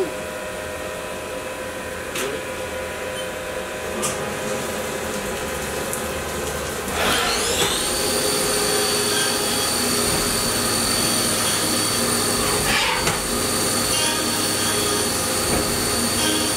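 Haas VF-2 vertical CNC machining center running: a steady machine hum, then about seven seconds in the 20 hp vector-drive spindle spins up with a rising whine that levels off into a steady high whine as the machining cycle starts, with coolant spraying.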